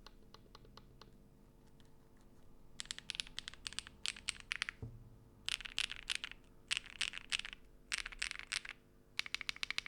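MonsGeek M1 V5 mechanical keyboard with prelubed Akko Mirror switches, a polycarbonate plate and blank keycaps being typed on. A few scattered keystrokes come first, then five quick flurries of clacks with short pauses between them.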